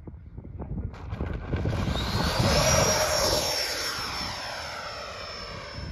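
Twin 80 mm electric ducted fans of a radio-control foam jet model whining past low on a touch-and-go. The high whine rises in pitch about two seconds in, is loudest as the jet passes close, then holds steady while fading slightly.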